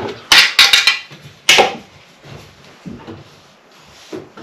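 Hard clatter of a spirit level and tools knocking against porcelain wall tiles: a quick run of knocks in the first second, then one more about a second and a half in.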